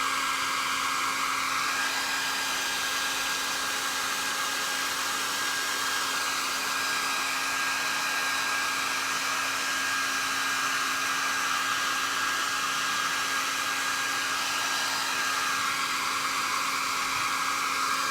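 A hand-held hair dryer runs steadily with a constant whine, drying wet paint on a plaster piece. Its rush swells slightly near the start and again near the end.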